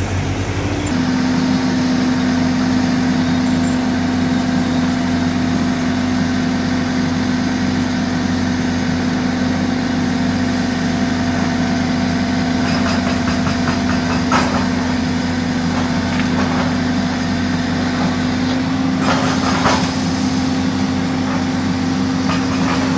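Hidromek backhoe loader's diesel engine running steadily with a constant hum, with a few short clanks past the middle and near the end.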